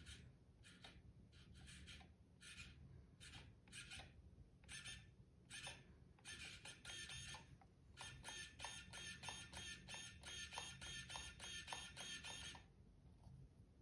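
GDW DS1906B digital micro glider servo whining faintly as it swings its arm: separate short sweeps at first, then rapid back-and-forth moves at about four a second from around eight seconds in, stopping shortly before the end.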